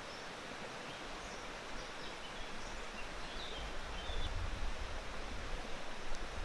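Woodland stream ambience: water running steadily, with a few faint, short bird chirps in the first few seconds.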